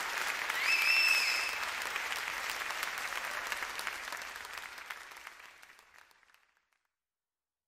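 Crowd cheering and applauding, with one shrill whistle that rises and holds for about a second near the start. The crowd noise then fades out to silence over the last few seconds.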